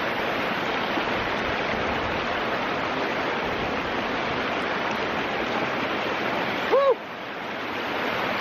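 Small waterfall pouring into a rocky mountain-stream pool, a steady rush of water. About seven seconds in comes one short voice cry that rises and falls, and the water sound drops for a moment and then builds back.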